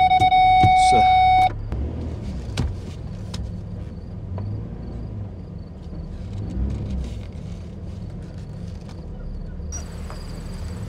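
A loud, steady electronic beep for about a second and a half, then a pickup truck rolling slowly along a gravel road with a low engine and tyre rumble.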